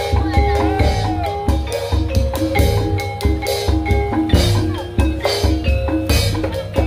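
Live music played through a PA sound system: short struck pitched-percussion notes carry a melody over a heavy bass beat of about two a second.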